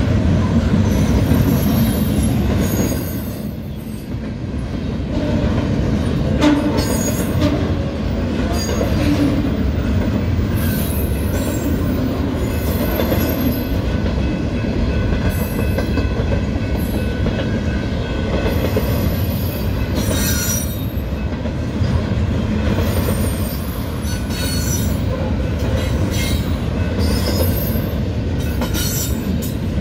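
Double-stack intermodal freight cars rolling past: a steady heavy rumble of steel wheels on rail, with thin high squeals from the wheels coming and going. The sound eases briefly about three to four seconds in.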